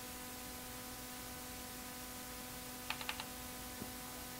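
Steady electrical hum with several steady tones, and about three seconds in a quick run of four key clicks from typing on the Apple IIe keyboard.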